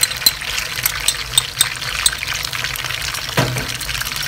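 Hot oil sizzling and crackling in a wok with curry leaves and spices, as tomato purée is spooned in and stirred with a wooden spatula.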